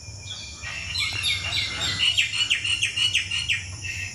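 A bird chirping in a rapid series of short, sloping notes, about five a second, starting about a second in.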